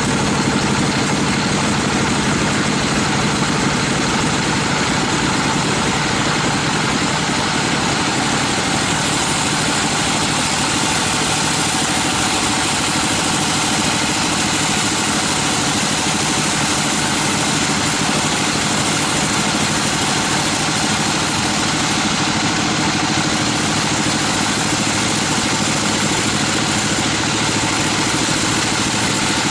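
Band sawmill running steadily, its blade sawing lengthwise through a teak log.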